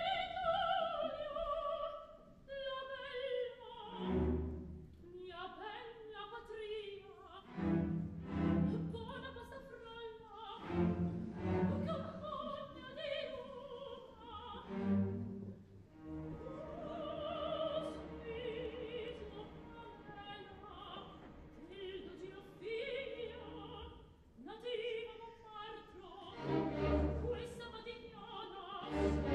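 Operatic soprano singing solo phrases with vibrato over an orchestra with strings, the low instruments marking the phrases with short accented chords about every four seconds.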